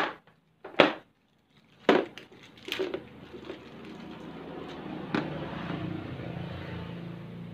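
Small hard parts and a plastic parts box clicking as they are handled: four sharp clicks in the first three seconds and another about five seconds in, over a steady low hiss.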